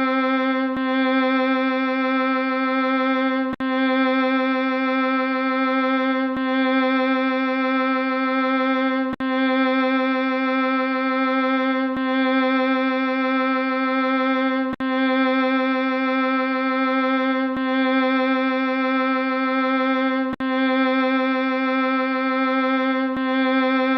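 The "melting eyes" sound effect played on a loop: one held, buzzy tone with a slight wavering in pitch, restarting with a short click about every three seconds.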